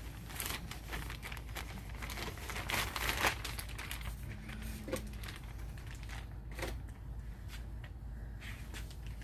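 Thin plastic poly bag crinkling and rustling in irregular bursts as a folded garment is pulled out of it by hand, loudest about three seconds in.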